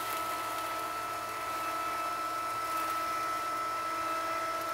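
Litter-Robot 3 drive motor running steadily as it turns the globe in its cleaning cycle: an even hum with a thin, high whine.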